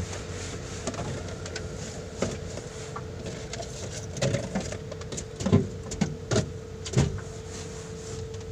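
Short knocks and clatters of things being handled and wiped on a truck dashboard, a handful of them spread out, over a steady hum.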